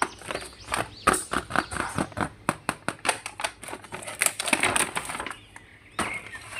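Plastic action figures and their packaging being handled: rapid, irregular clicks and knocks, with a brief rustle about four seconds in.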